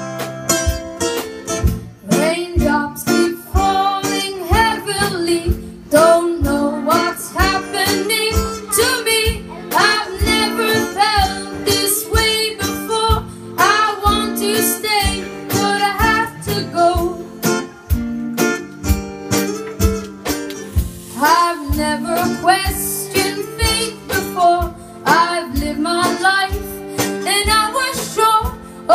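Live band music: strummed guitar with a steady beat, and a young singer's voice carrying the melody over it.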